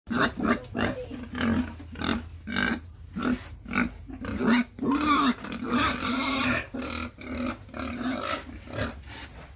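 Three-month-old pigs grunting in a quick run of short calls, roughly two a second, with one longer call that rises and falls about halfway through.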